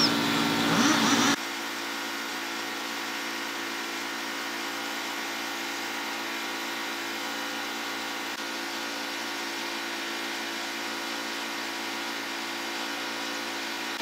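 An engine running steadily with an even hum. Before that, a louder, mixed noise with a short rising glide cuts off suddenly about a second in.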